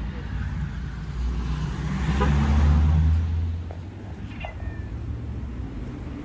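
A cat meowing briefly, a short call that falls in pitch, over steady street traffic. A passing vehicle's low rumble swells about two seconds in and is the loudest sound.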